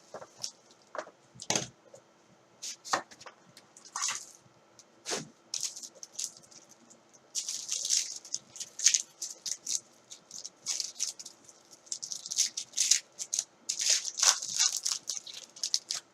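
Hands opening a sealed box of trading cards: plastic wrap crinkling, cardboard and cards being handled, an irregular run of rustles and clicks that grows busier in the second half.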